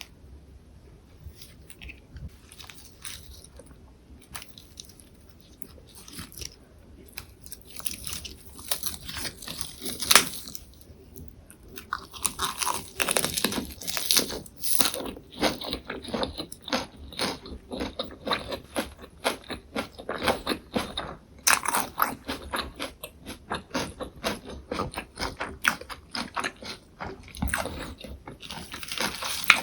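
Close-miked biting and chewing of a lettuce wrap: crisp crunching of fresh lettuce and perilla leaves with soft tofu and gochujang. It is sparse at first, with a single sharp crunch about a third of the way in, then dense and steady chewing to the end.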